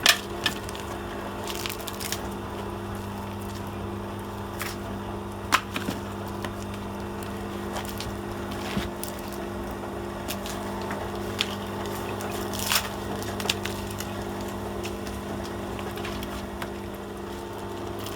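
V-080 cable stripping machine's electric motor running with a steady hum, with scattered sharp clicks and cracks through it.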